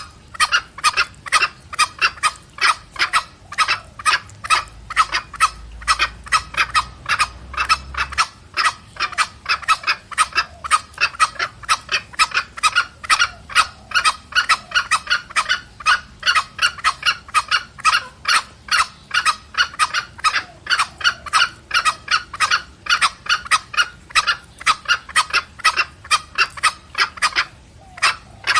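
Green junglefowl, cock and hen, giving rapid clucking "petrek" calls that answer each other. The calls come in a fast, even run of about four a second, with a brief pause near the end. This is the call used to lure junglefowl.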